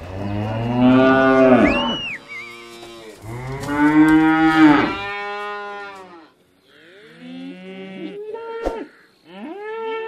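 Cattle mooing: two long, loud moos in the first five seconds, followed by several shorter, quieter moos.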